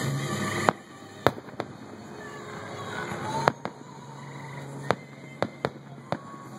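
Aerial fireworks shells bursting: about eight sharp bangs at uneven intervals, the loudest in the first half.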